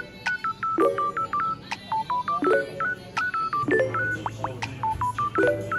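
Background music: quick runs of short, blip-like synth notes over chords that return about every second and a half.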